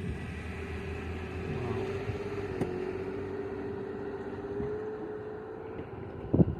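Portable air compressor running steadily with a slightly wavering hum while inflating a boat trailer's tyre. A brief louder knock comes near the end.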